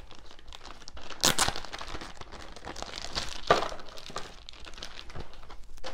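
Clear plastic packaging crinkling as it is handled and unwrapped, with sharper crackles about a second in and again about three and a half seconds in.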